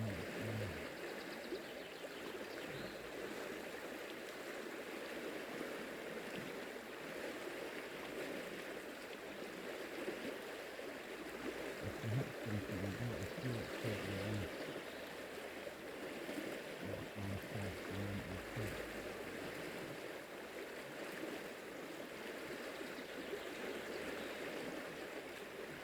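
Fast-flowing river, high after flood rain, rushing steadily, with a few low bumps near the middle.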